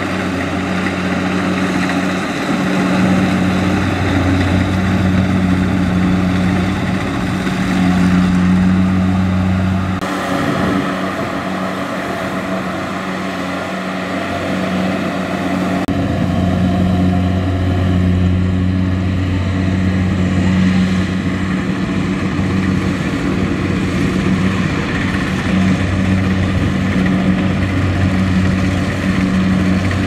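Kubota DC-70 Plus rice combine harvester running under load as it cuts and threshes rice: a steady diesel engine and machinery drone. The low engine hum drops back about ten seconds in and comes back strongly some six seconds later.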